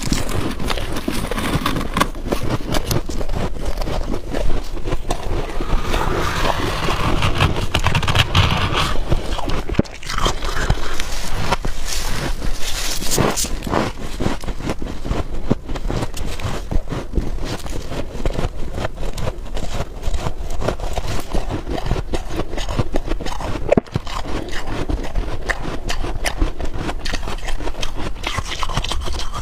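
Freezer frost being scraped off the freezer walls and bitten and chewed: a dense, unbroken run of crunching and scraping made of many quick crackles.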